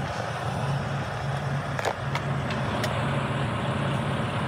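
Semi truck's diesel engine idling with a steady low hum, heard from inside the cab, with a few light clicks about two and three seconds in.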